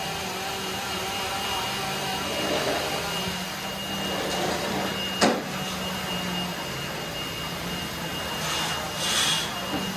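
Steady drone of power tools running at a wood-carving work area, with a sharp knock about five seconds in and a short hiss near the end.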